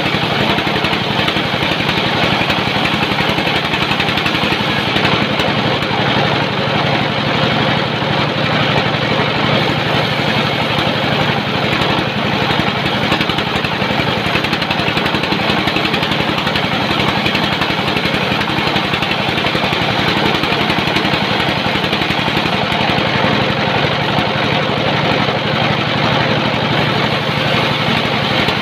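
Sawmill machinery running steadily: the hum of an engine-driven saw under a dense, even hiss, with no pauses or changes.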